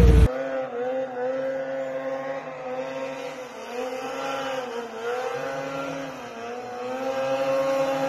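A snowmobile engine, heard from a distance, runs steadily with its pitch rising and falling as the rider works the throttle through carving turns in the snow. Just before that, a louder, closer snowmobile sound cuts off abruptly a moment in.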